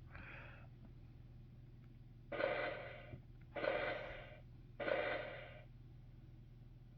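Fisher-Price Great Adventures Magic Castle playset's electronic sound effect through its small speaker, set off by a villain figure: three short bursts a little over a second apart, each fading out.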